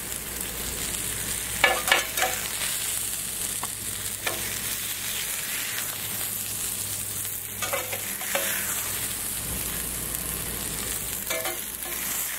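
Burger patties sizzling steadily on a hot stovetop griddle, with a few short clatters about 2, 8 and 11 seconds in.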